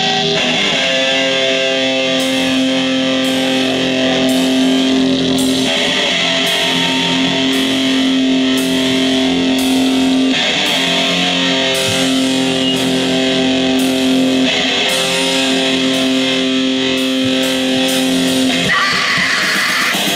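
Live crust punk band playing a slow passage: loud distorted electric guitar chords held for several seconds at a time, with drums and crashing cymbals over them.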